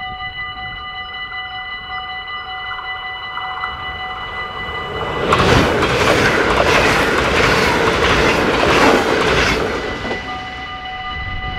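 Dutch level-crossing bells ringing steadily. About five seconds in, a passenger train passes at speed: a loud rush with a quick run of wheel clicks that drowns the bells for about five seconds, then fades, leaving the bells ringing on.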